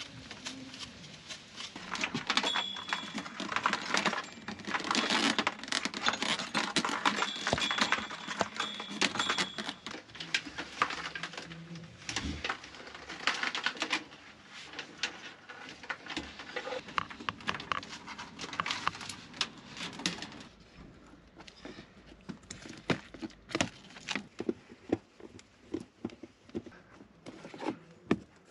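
Hands working with tools, metal fittings and plastic hose under a van: a dense run of small clicks, knocks and rattles that thins out to scattered clicks after about twenty seconds.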